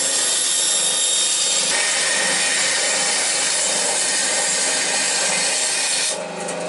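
Small benchtop bandsaw cutting through a thin template sheet, a steady hiss of the blade in the cut. About six seconds in the cut ends and it drops to the quieter hum of the saw running free.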